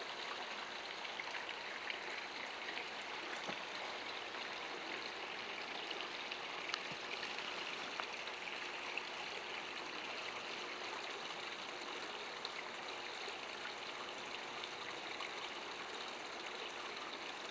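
Steady, even rushing noise with a few faint ticks.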